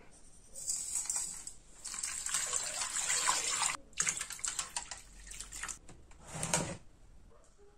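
Salt pattering from a small glass bowl onto potatoes in a pot, then water poured from a jug into the stone-coated pot over the potatoes for several seconds. It ends with a single knock as the pot is set down on the wooden table.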